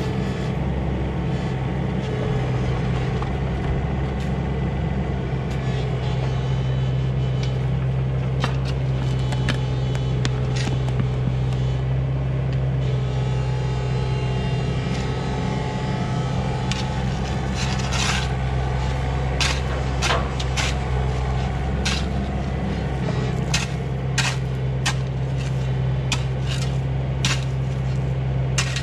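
Komatsu PC16 mini excavator's diesel engine running steadily while it digs, with a hand shovel scraping and clinking in gravel close by, the strokes coming often in the second half.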